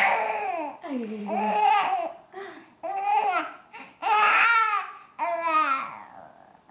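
Infant babbling: a string of about six short, high-pitched vocal sounds with gliding pitch.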